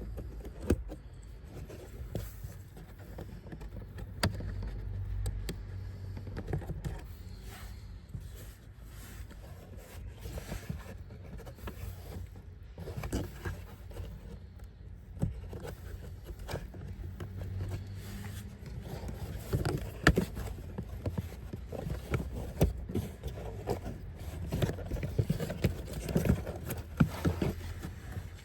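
Hands working on the car's cabin filter access, making scattered clicks, knocks and scrapes over a low steady rumble. The clicks come thicker and louder near the end.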